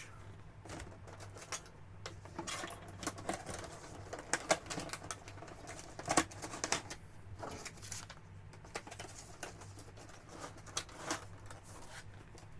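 Plastic packaging crinkling and rustling with irregular clicks and taps of small plastic model-kit parts being handled.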